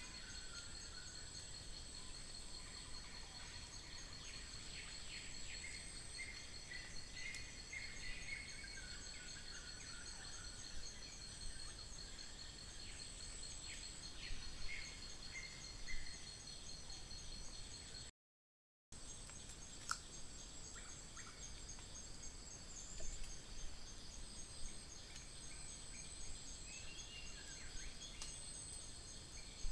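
Faint forest ambience: a steady high-pitched insect chorus with a fine pulsing rhythm, and scattered short bird chirps and calls. The sound cuts out completely for about a second a little past halfway, and a sharp click follows just after it resumes.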